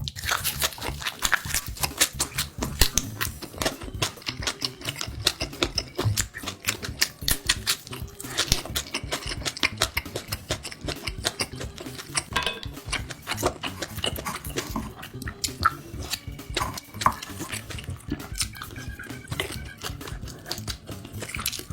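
Close-miked chewing: a steady run of wet clicks and smacks from a person eating.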